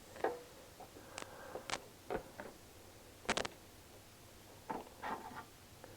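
Faint handling noise: scattered small clicks and taps, with a quick triple click about three seconds in as the loudest.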